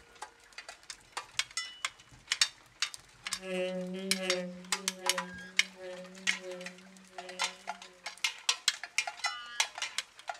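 Metal bells clanking irregularly, each strike ringing briefly. A low wavering tone sounds under them from about three seconds in until about eight seconds in.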